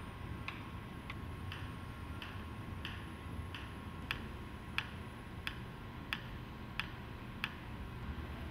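Clock ticking steadily, about one and a half ticks a second, over a low hum.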